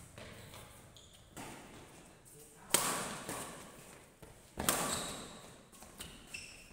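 Badminton rally: rackets striking the shuttlecock four times, sharp cracks about two seconds apart, the middle two loudest, each ringing on in the echo of a large hall.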